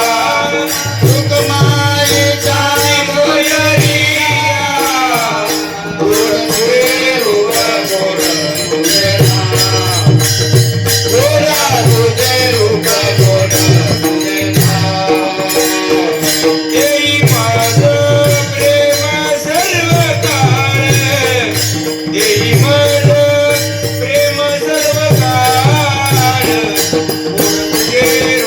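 Varkari bhajan music: a voice singing a traditional melody over a steady held drone, with regular pakhawaj (mridang) strokes and the continuous clash of small hand cymbals.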